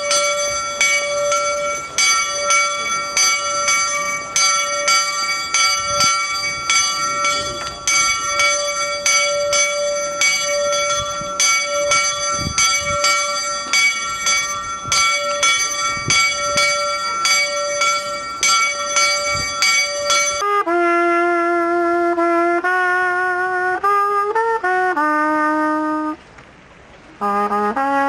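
A church bell tolls with repeated strokes and a long ring. About twenty seconds in it cuts off suddenly and a solo trumpet plays a slow melody of held notes, breaking off briefly near the end before going on.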